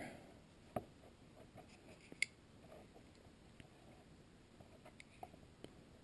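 Mostly near silence with a few faint clicks and ticks of hands handling thin insulated wires and heat-shrink tubing. The sharpest click comes about two seconds in.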